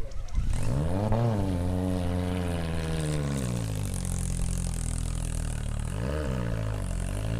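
Off-road 4x4 vehicle's engine revving: it rises and falls in pitch about a second in, runs steadily, then revs up and back down again near the end.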